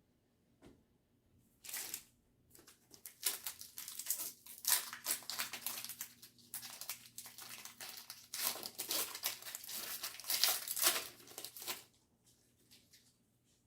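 Foil wrapper of a Pokémon card booster pack crinkling and tearing as it is opened, in irregular crackly bursts lasting about ten seconds, loudest in the second half.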